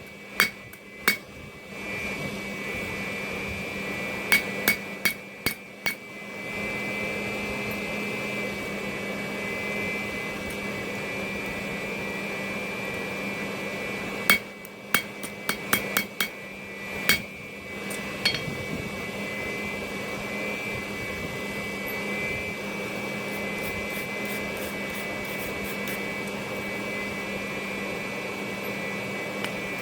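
Hammer striking a small hand-forged iron drawer pull on the anvil to level it, in short groups of taps: two at the start, about five a little after four seconds, and about seven between fourteen and eighteen seconds. Under the taps runs a steady machine hum with a high whine.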